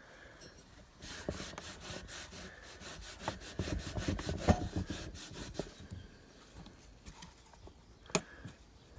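Petrol-soaked rag rubbed back and forth in quick strokes along a painted steel bicycle frame tube, scrubbing off old sticker glue. The rubbing dies away about six seconds in, and a single sharp click follows near the end.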